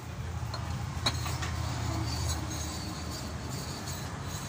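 Steady low background rumble with a sharp click about a second in and a few lighter ticks, as a piston is worked by hand into a freshly fitted cylinder liner of an open diesel engine block.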